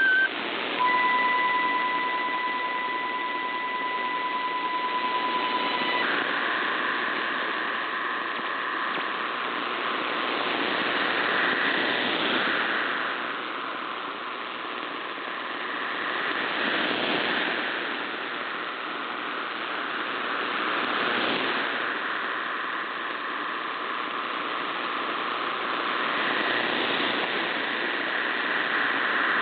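Shortwave reception of a VOA Radiogram MT63-1000L digital text signal under static. It opens with two steady tones an octave apart, held for about five seconds. These then give way to a dense, even hiss-like wash of many tones that slowly swells and fades with the signal.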